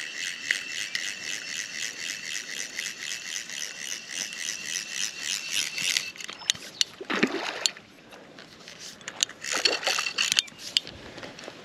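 Fly reel's click-pawl ratchet clicking in a steady run while a hooked trout is played, stopping about six seconds in. Then come scattered clicks and two short splashes as the trout swirls at the surface.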